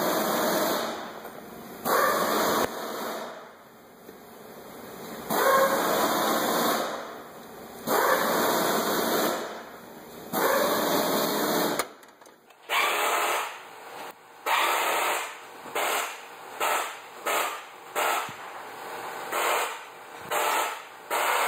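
A 3/8-inch ratchet on an extension and spark plug socket clicking in repeated bursts as it is swung back and forth to loosen a spark plug. It goes in longer bursts every two to three seconds at first, then, about twelve seconds in, in shorter, quicker bursts about once a second.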